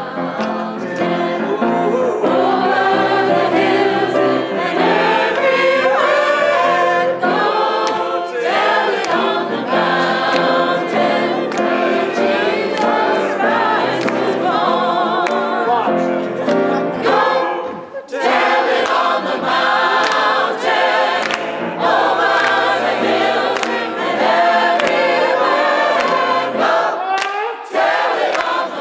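A choir singing a gospel song, with a short break about eighteen seconds in.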